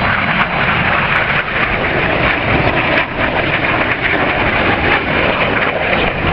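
BAE Hawk T1 jets of the Red Arrows flying over, their Rolls-Royce Adour turbofans making a loud, steady jet rush with a deep rumble.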